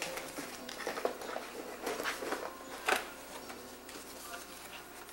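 Paper rustling and crinkling as a small wrapped gift is unwrapped by hand, in irregular bursts with a louder crackle about three seconds in.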